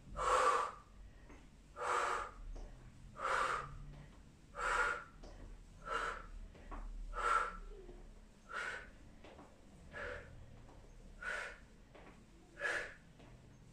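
A woman's forceful exhalations, one short breath pushed out with each repetition of a standing knee-to-hand torso twist. There are about ten, evenly spaced at roughly one every second and a half.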